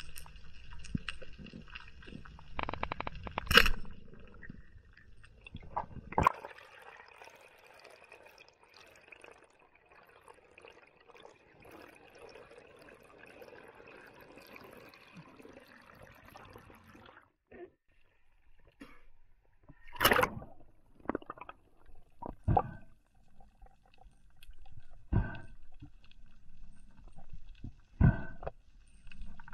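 Underwater sound of air bubbles rising and gurgling past the camera, a rough bubbling that stops about two thirds of the way through. Dull knocks come at intervals, a few early on and several more toward the end.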